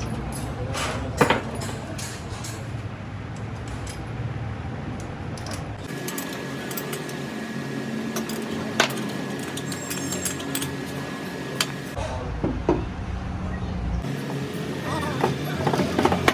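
Metal clinks and knocks from tools and parts over a low workshop rumble, in several short cut-together stretches, with a steady thin whine in the middle stretch.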